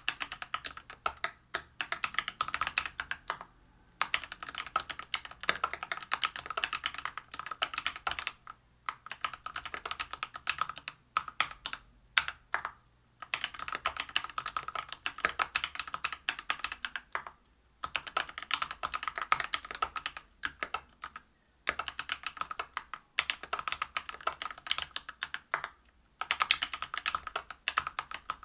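Typing on a Whale 75 mechanical keyboard with lubed Everglide BeesWax 67 g linear switches, a brass plate and PBT keycaps. Quick runs of keystrokes broken by short pauses every few seconds.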